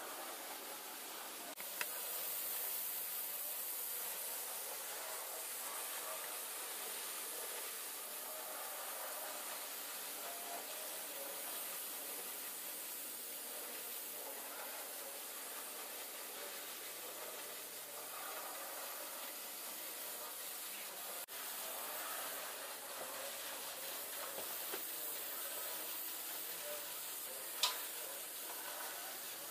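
Steady background hiss, with a small click about two seconds in and a sharper click near the end.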